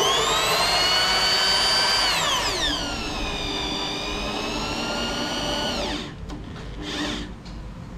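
Corded electric drill spinning a CNC router's ball screw to run the table along its linear rails: a steady motor whine that drops in pitch about two seconds in and stops about six seconds in, followed by a few light knocks. The axis is being run out to check its travel.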